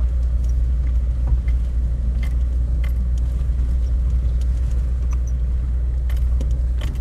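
Steady low rumble of a car driving slowly down an unpaved dirt road, heard from inside, with scattered light clicks and rattles.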